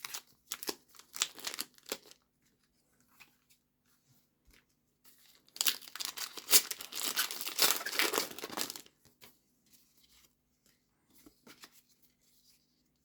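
Foil wrapper of a Pokémon card booster pack crinkling and being torn open: short crackles in the first two seconds, then a longer, louder run of tearing and crinkling lasting about three seconds in the middle.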